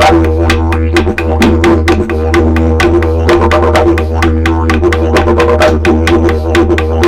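Didgeridoo played as a continuous low drone with shifting overtones, over a fast, even beat of sharp clicks, about five a second.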